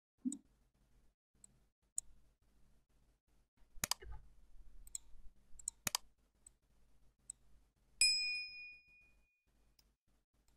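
Sound effects of a pop-up subscribe-button animation: two sharp clicks about two seconds apart, then a single bright notification-bell ding about eight seconds in, with faint mouse clicks between.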